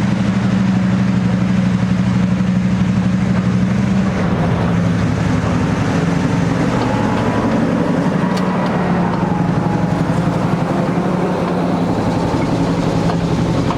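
Class M6 diesel-electric locomotive's engine running loud and steady with a rapid firing beat, easing slightly after about four seconds.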